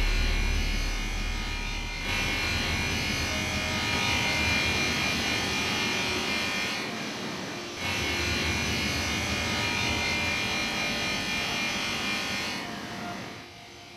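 An electric power tool whirring with a high whine and grinding hiss. It eases off briefly twice and fades out near the end.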